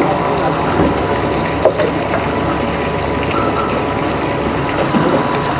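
Steady rush of running water, like a pond pump or aerator, with one short knock about a second and a half in.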